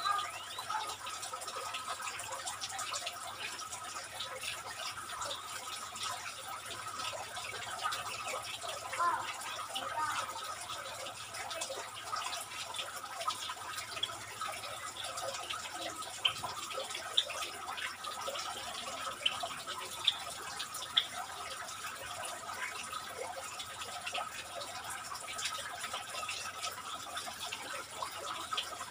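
Steady background hiss with a faint constant tone, broken by scattered short, high chirps from small birds in the aviary, a few louder ones in the second half.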